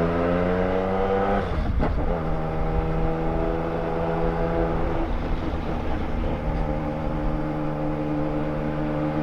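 Yamaha Tracer 900 GT's inline-three engine through a 3-into-1 exhaust, rising in pitch as the bike accelerates. About a second and a half in there is a gear change, after which the engine holds a steady, lower pitch.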